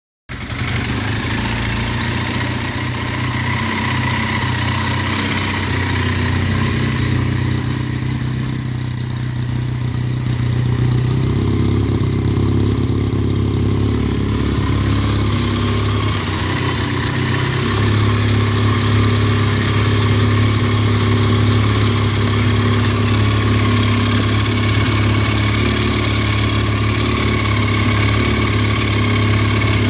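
Honda CBR 450 parallel-twin motorcycle engine idling steadily, purring smoothly on its first start after the engine was treated with Molykote spray. The idle speed steps up slightly twice along the way.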